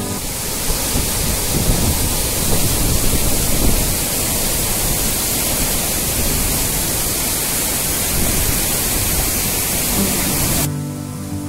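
Waterfall and fast-flowing stream: a loud, even rush of falling and tumbling water. It cuts off suddenly near the end, and acoustic guitar music comes back in.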